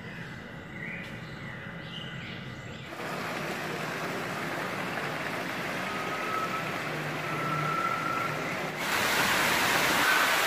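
Water from small waterfalls splashing down into pools, a steady rush that sets in about three seconds in and gets louder and brighter near the end. Before it, a few faint bird chirps.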